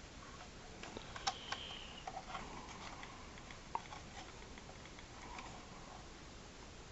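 Light clicks and taps of a hard plastic toy spaceship, the Micro Galaxy Squadron Inquisitor Transport Scythe, being turned over and gripped in the hands. The clicks are few and scattered, the clearest about a second in and near four seconds.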